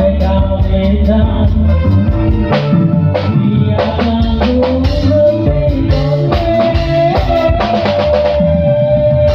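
Small live band of electric guitar, keyboard and drum kit playing a song, with a run of drum hits in the middle and a long held melody note near the end.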